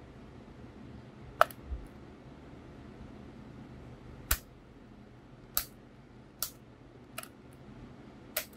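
Sharp plastic clicks and taps, six of them at uneven intervals of about a second, from hands handling the open casing of a Sony WM-FS495 Walkman cassette player. A dull low knock follows just after the first click.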